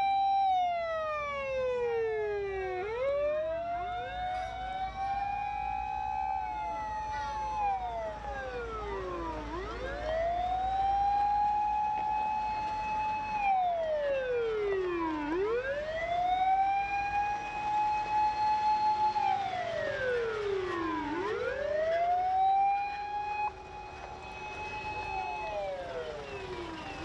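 Several Japanese fire engine sirens wailing out of step with one another, over a low engine rumble. Each rises quickly, holds high for about two seconds, then slides down, about every six seconds.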